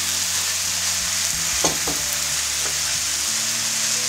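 Minced chicken sizzling steadily in hot oil in a frying pan, with a couple of brief scrapes of a wooden spatula against the pan about halfway through.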